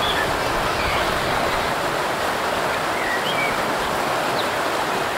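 A stream of water running steadily over rocks, a constant rushing hiss, with a few short high chirps scattered over it.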